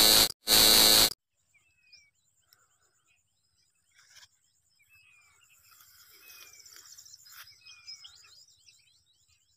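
Two loud bursts of static-like glitch noise, the transition effect, ending about a second in. Then faint birds calling in open country, a few short falling whistles over a faint high hiss from the middle on.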